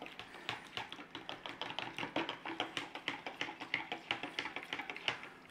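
Metal spoon stirring jelly powder into boiling water in a plastic measuring jug, tapping and clicking quickly and irregularly against the jug's sides and bottom as the powder dissolves.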